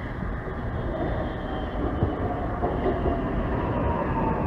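SEPTA Market–Frankford Line train approaching, its running rumble growing steadily louder. From about two seconds in, a thin whine slides down in pitch.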